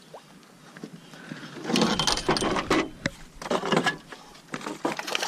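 Fishing reel being cranked hard while fighting a pike, a rapid mechanical clicking rattle that starts after a quiet second and a half and comes in bursts.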